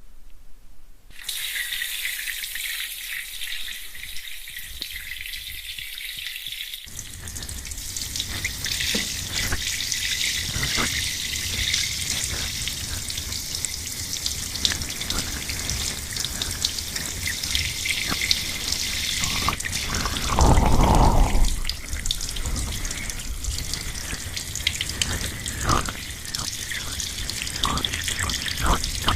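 Water running during a hair wash: a thin hiss starts about a second in and becomes a fuller rush about a quarter of the way through, with one louder gush about two-thirds of the way through.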